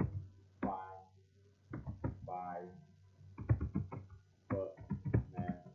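Computer keyboard being typed on in short bursts of key clicks, with a man's voice speaking or murmuring softly between and over them.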